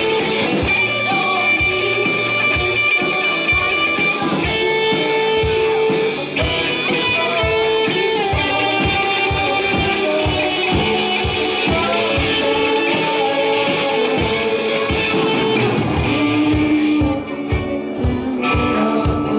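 A live rock band plays, with guitars carrying held melody notes over a drum kit keeping a steady beat. About sixteen and a half seconds in, the bright top of the sound drops away and the band gets quieter for a moment.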